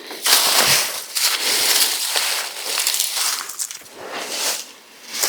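Crunching and rustling of dry leaves and twigs being handled, with a few sharp snaps and clicks.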